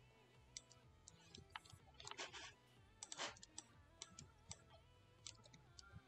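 Faint, scattered clicking of computer keys, with a short flurry of clicks about two seconds in and another about three seconds in.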